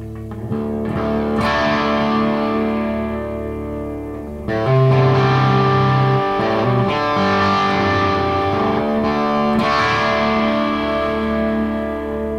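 Gretsch White Falcon G6136T hollow-body electric guitar with Filtertron pickups, played through a Laney amp: chords struck and left to ring, with a fresh chord every few seconds. The loudest is struck about four and a half seconds in.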